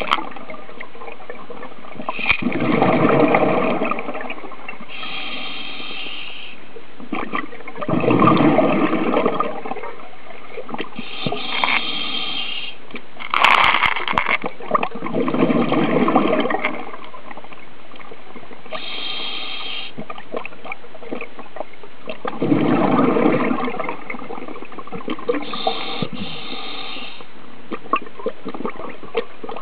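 Scuba diver breathing through a regulator underwater: a short hiss on each inhalation alternating with bursts of exhaled bubbles, about one breath every six to seven seconds, over a steady background hiss.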